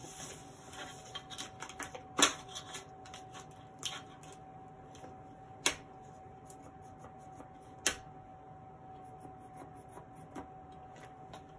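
Light rustling and small clicks from handling a woven feed sack and cutting tools, with three sharp taps about two, six and eight seconds in, over a faint steady hum.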